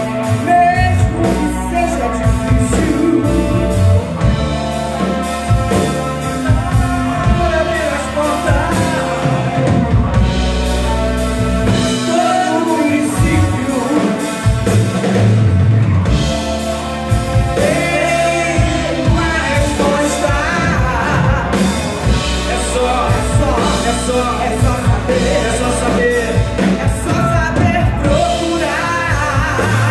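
Live rock band playing: a woman singing lead over two electric guitars, an electric bass and a drum kit.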